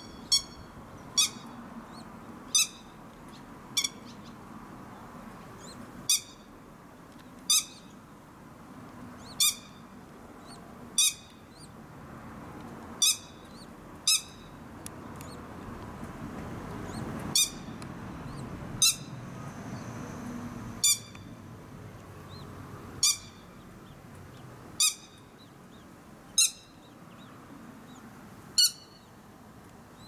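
Grey-headed lapwing giving short, sharp single call notes, repeated about every one to two seconds.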